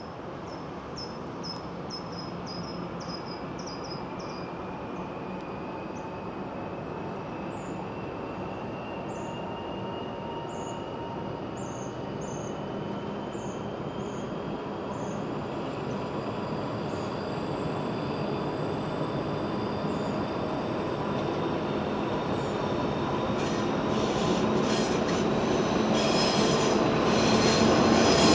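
DB class 234 'Ludmilla' diesel locomotive 234 242 pulling away with a passenger train: its Kolomna V16 diesel engine drones under load with a slowly rising whine, growing steadily louder as it approaches. Wheel and rail clatter joins in near the end.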